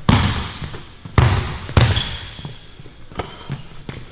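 A basketball being dribbled: three hard bounces in the first two seconds and a softer one about three seconds in, with short high-pitched sneaker squeaks on the court about half a second in and near the end.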